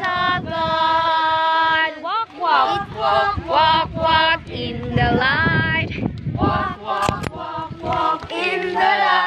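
A group of children and adults singing a Christian song together in unison, with a long held note near the start.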